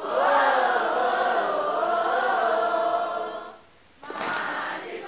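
A mixed group of students sings a yel-yel, a rhythmic group cheer, loudly in unison. The chant breaks off about three and a half seconds in. After a brief gap comes a sharp hit, then crowd noise.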